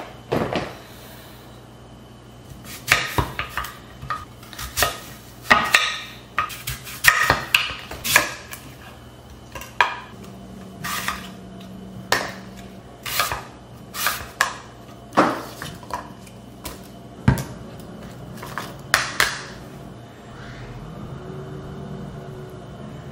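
A knife cutting an apple on a wooden cutting board: irregular sharp knocks and clicks as the blade goes through and strikes the board. Near the end, a spoon scooping peanut butter onto the apple slices in a bowl.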